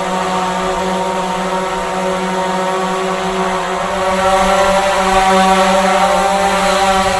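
Drone flying: a steady buzzing hum of its motors and propellers, several pitches held together, growing somewhat louder about four seconds in.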